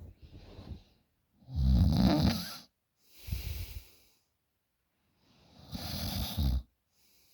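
A young woman snoring loudly in her sleep: two loud, rough snores about four seconds apart, each followed by a quieter, breathy breath.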